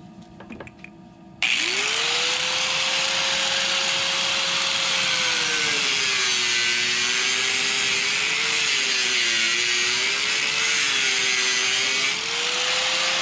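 Handheld power tool cutting through PVC well pipe. The motor starts suddenly about a second and a half in, and its pitch sags and wavers as the blade bites into the pipe, rising again near the end.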